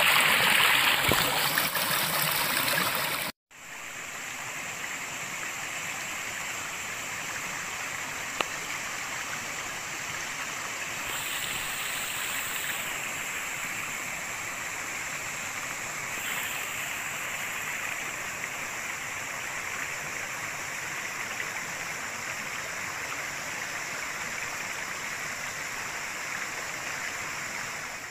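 Water rushing over the rocks of a river rapids, a steady hiss. It is louder for the first few seconds, breaks off for an instant, and carries on a little quieter.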